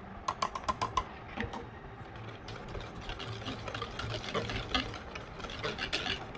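A kitchen utensil tapping and scraping against a mixing bowl while melted chocolate is added to creamed butter and sugar for brownie batter: a quick run of about seven sharp, ringing taps in the first second, then irregular lighter clicks and scrapes of stirring.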